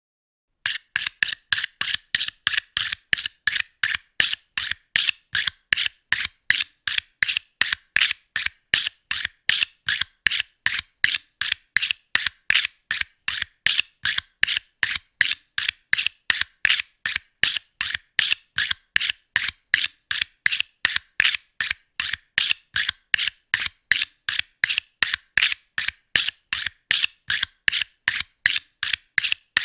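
A knife being sharpened in quick, evenly spaced strokes, about three a second. Each stroke is a short, high scrape, and they start about half a second in.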